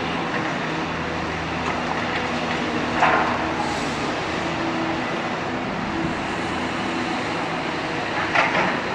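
Heavy diesel construction machinery running steadily, with a few low engine tones. A couple of brief louder sounds come about three seconds in and again near the end.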